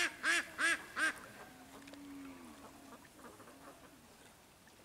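Domestic ducks quacking: four loud quacks in quick succession in the first second, followed by a fainter, longer low call and quieter background.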